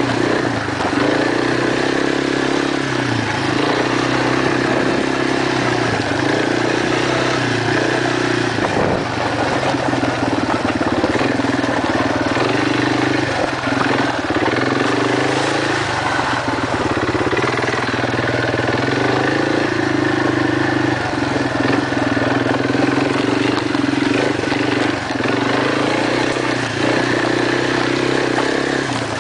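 Quad (ATV) engine running as the machine rides along, its pitch rising and falling a little with the throttle, at a steady loudness.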